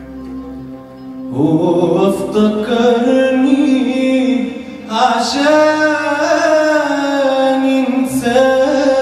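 Male singer performing an Arabic song live, his voice coming in about a second in with long, ornamented held notes that bend in pitch. He is accompanied by a band of qanun, oud, bass guitar and drums.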